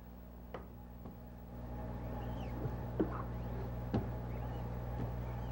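Hand silkscreen printing: a few light knocks of the hinged wooden screen frame and a squeegee scraping ink across the screen, over a steady low electrical hum.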